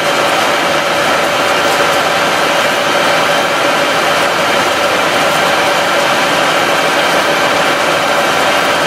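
A SunCell hydrogen reactor running submerged in a tank of water that it is boiling, giving a loud, steady rushing noise with a constant hum of several tones through it.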